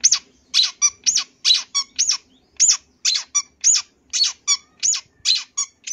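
Long-tailed shrike (cendet) calling: a rapid series of short, loud, squeaky notes, about two to three a second, ending just at the close.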